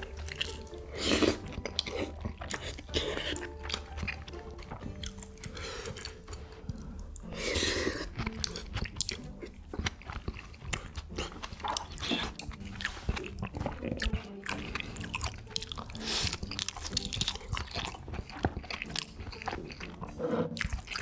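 Close-miked eating: crunchy bites and wet chewing of food, with a run of short sharp crunches and the loudest bite about a second in.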